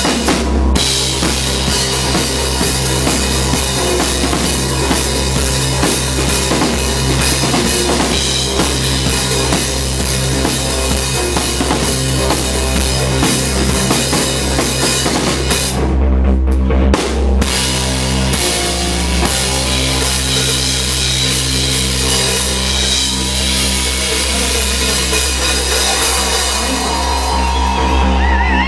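Live rock band playing loudly, the drum kit the most prominent, with bass drum and cymbals over bass and guitar. About halfway through, the cymbals and upper parts drop out twice for a moment while the low end keeps going.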